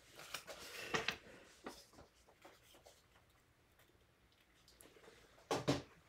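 Faint handling noises: scattered light taps and rustles, with a louder knock about five and a half seconds in.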